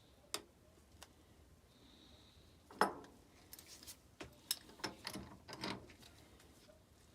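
Metal parts and tools being handled while setting up a workpiece at the milling machine: a few sharp clicks, then a louder metallic knock about three seconds in, followed by a run of clicks and scraping.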